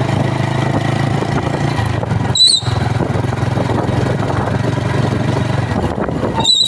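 TVS Star motorcycle's drum brake in the wheel hub squealing each time the brake is applied, over the steady hum of the running bike. There is a short high squeal about two and a half seconds in and a longer, wavering one near the end. It is a braking noise that the mechanic sets out to trace to the brake shoes and shoe springs.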